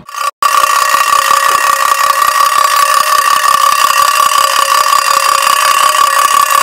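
A loud, unwavering high-pitched tone over a hiss, starting abruptly after a brief dropout just after the start.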